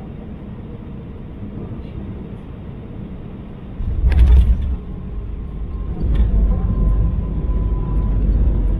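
Cabin noise of an Airbus A319 landing. The main gear touches down with a thump about four seconds in, followed by the rumble of the wheels on the runway, and the noise grows louder again about six seconds in as the rollout goes on.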